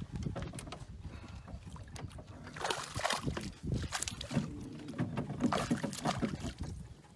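Water lapping against a small fishing boat's hull, with irregular knocks and rustles.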